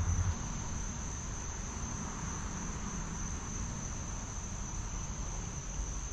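A steady, high-pitched insect chorus trilling without a break, over a low rumble.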